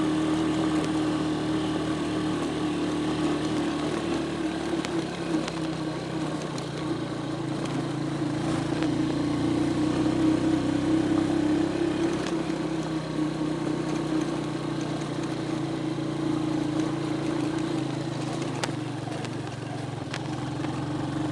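A vehicle engine running steadily while being driven along a rough dirt road, its pitch rising a little about halfway through and then easing back, with a few faint knocks.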